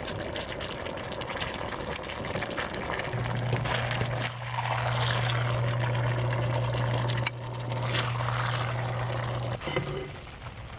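Teriyaki sauce sizzling and bubbling in a hot wok just taken off the heat, while a nylon slotted spatula scrapes the chicken out onto a plate. A steady low hum comes in about three seconds in and stops shortly before the end.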